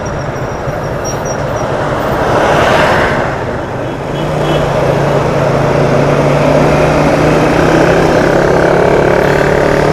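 Motorcycle engine running steadily under a rushing wind noise on a helmet-mounted external microphone, the engine note rising slightly near the end.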